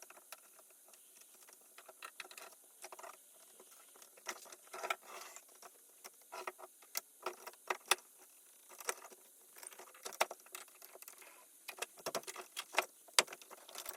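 Handling noise: irregular light clicks, taps and rustles as the camera is picked up and repositioned and things on the work surface are shifted aside. The taps come more often and louder in the last couple of seconds.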